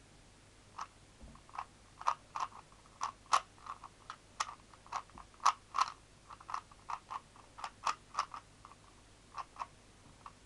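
Rubik's speed cube being turned by hand as it is scrambled: irregular plastic clicks and clacks of its layers, a few a second.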